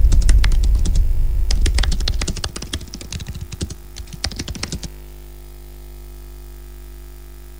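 Keyboard-typing sound effect: a rapid, uneven run of key clicks over the tail of a deep bass boom that fades away, the clicks stopping about five seconds in and leaving a faint steady hum.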